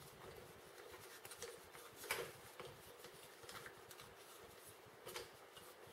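Faint handling noises as a phone clamp is twisted off the Tacklife MLT01 tripod's mounting screw: a few soft plastic clicks and rubs, the clearest about two seconds in and again near the end.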